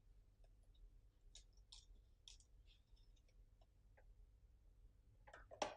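Near silence with faint, scattered light clicks and ticks, like small parts being handled, and one louder sharp sound just before the end.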